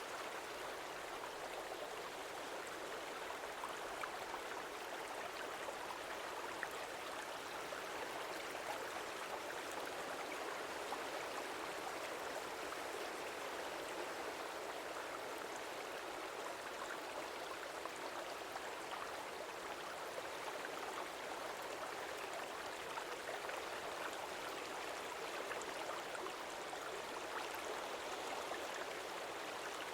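Stream water flowing, a steady, even rush with small flecks of splashing.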